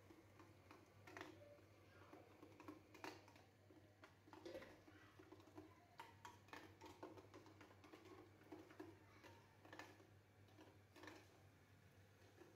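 Near silence: faint kitchen room tone with a low hum and scattered light clicks.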